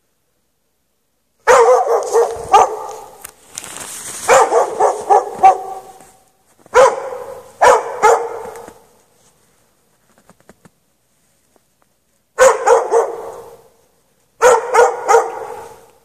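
Dog barking in short volleys of a few barks each, with pauses between. It is the persistent barking of a dog left chained outside in the snow for hours.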